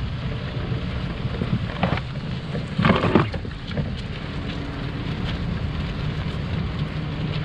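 Wind buffeting the microphone as a steady, irregular low rumble, with a brief louder burst of noise about three seconds in.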